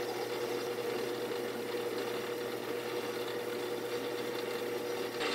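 Metal lathe running steadily with a hum while its tool turns down a spinning brass rod, taking it a few thou under the major diameter before threading with a die. The sound gets louder and brighter near the end.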